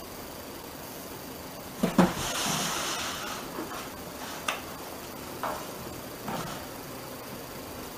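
A cat jumping into a tall cardboard box: two sharp knocks just under two seconds in and a short rustle, then a few dull cardboard thumps as the cat lands and moves about inside the box.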